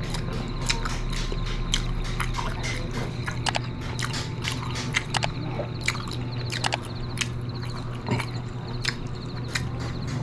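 Close-up mukbang eating sounds: wet chewing and smacking of siomai dumplings in sauce, with many irregular sharp clicks, over a steady low hum.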